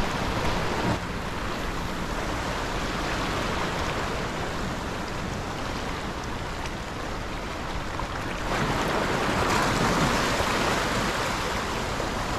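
Small waves washing and splashing against shoreline rocks, with wind on the microphone. The water grows louder for a few seconds about two-thirds of the way through.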